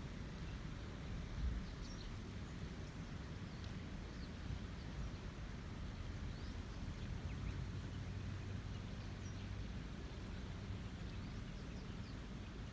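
Rain-swollen river flowing, a steady low rush of water, with faint short bird chirps scattered over it and a brief low thump about one and a half seconds in.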